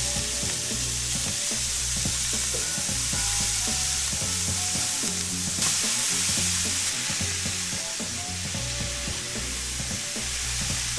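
Finely chopped soup vegetables and zucchini sizzling in a hot frying pan as they are tipped in and stirred with a spatula. The sizzle swells a little about halfway through.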